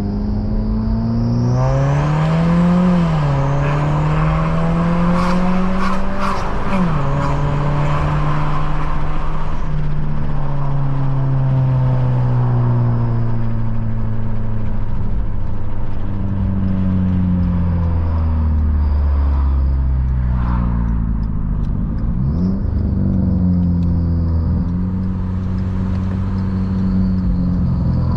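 Straight-piped turbocharged Ford Fusion engine and exhaust running, its pitch rising and falling with the revs. For about the first eight seconds it sounds harsher, with crackles.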